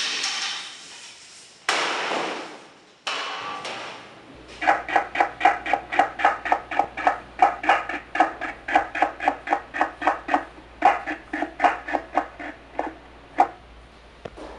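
Cleaver chopping on a wooden chopping block: a fast run of sharp chops, about four a second, for some nine seconds. It starts about four seconds in, after a few brief scraping sounds.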